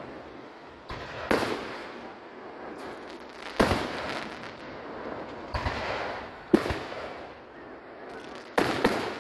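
Aerial fireworks shells bursting in a display: about half a dozen sharp booms a second or two apart, each trailing off in an echoing rumble, with two close together near the end.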